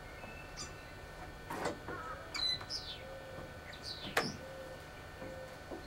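Wild birds chirping and calling. Two sharp knocks, about one and a half and four seconds in, are high-heeled pumps stepping on the wooden deck boards; the second knock is the loudest sound.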